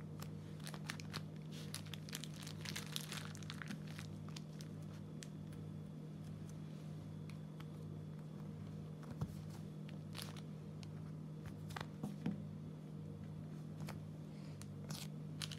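Slime and clay being pressed and smoothed by hand onto a squishy toy, giving faint scattered sticky clicks and crackles, busiest in the first few seconds, over a steady low hum.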